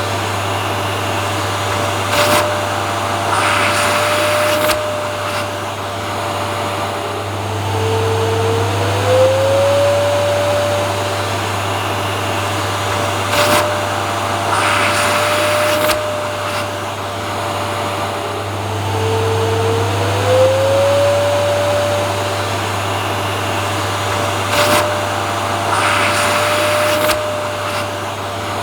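Vacuum cleaner running continuously, its motor whine steady but sagging lower and gliding back up about every eleven seconds. Short clicks and brief rushes of air recur on the same cycle.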